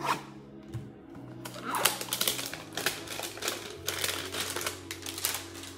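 Cardboard trading-card hanger box being torn open by gloved hands: a quick run of crackling clicks and tearing that gets going about a second and a half in.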